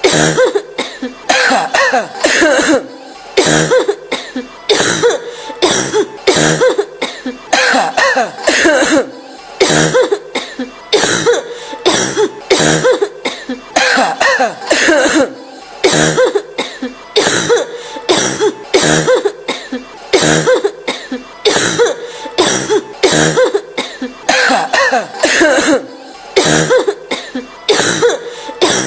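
A woman coughing over and over, in clusters of short harsh coughs with brief pauses between them.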